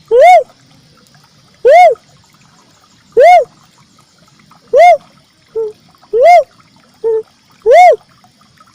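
Uncal merah cuckoo-dove call repeated as a bird lure: a loud, hollow coo that rises and falls in pitch, about every one and a half seconds, six times, with a short lower note slipped in before two of the later coos.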